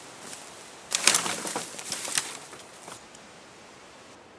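A tarp being shaken out and flapping: a burst of crackling, flapping fabric about a second in, lasting roughly two seconds, over a steady hiss of wind.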